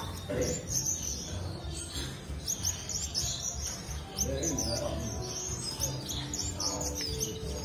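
Background music with a steady, repeating bass beat, and many short, high, bird-like chirps throughout.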